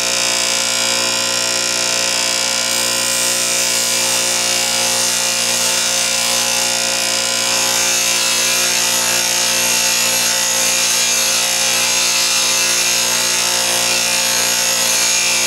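Bench grinder running with a steady hum while a high-speed steel lathe threading tool bit, clamped in an aluminum jig, is ground on the wheel, making a steady hiss of grinding that grows stronger a few seconds in.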